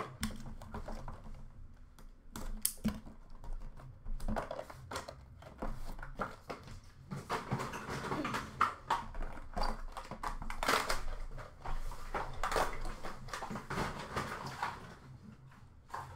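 A cardboard trading-card box and its packaging being handled and opened: irregular rustling, scraping, clicks and light knocks.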